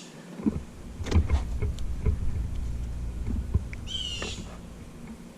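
A low rumble with a few knocks in it, and a bird calling once about four seconds in.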